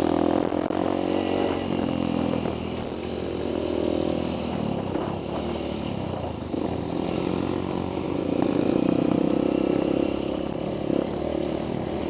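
Honda CRF150 trail bike's single-cylinder engine running under way, its pitch rising and falling with the throttle, loudest at the start and again about eight to ten seconds in.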